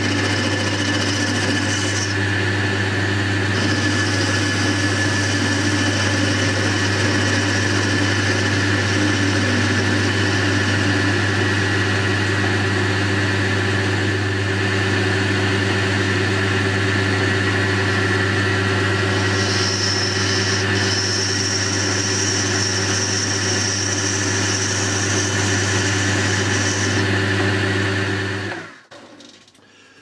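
Boxford lathe running steadily with a four-jaw chuck while the tool faces the end of a steel bar; a higher hiss comes and goes over the steady hum. Near the end the lathe is switched off and the sound dies away within about a second.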